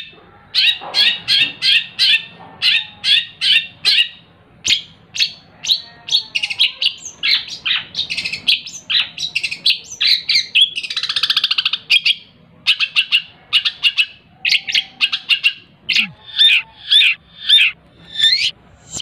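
Long-tailed shrike singing loudly: rapid runs of harsh chattering notes, about four a second, broken by short pauses. Near the middle come varied phrases and a buzzy rattle lasting over a second.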